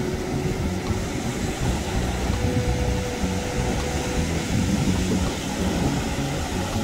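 Steady rumble of surf and wind on the microphone, loudest in the low range and even throughout.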